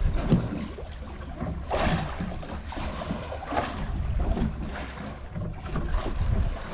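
Wind buffeting the microphone over sea water washing and splashing against a small fishing boat's hull, swelling in surges every couple of seconds.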